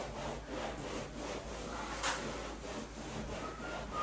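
Repeated rubbing, scraping strokes on a wallpaper surface as the paper is worked by hand at the top of the wall, with one brief sharper sound about halfway through.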